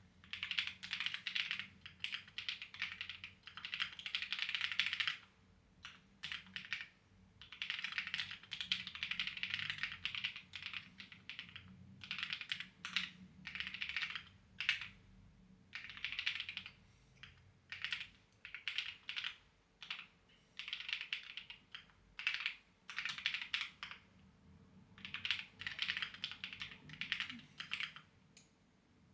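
Clacky computer keyboard being typed on in quick runs of keystrokes, with short pauses between bursts.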